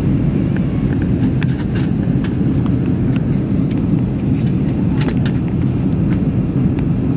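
Steady low roar of a Boeing 737 airliner in flight, heard inside the cabin: engine and airflow noise, with a few light clicks scattered through it.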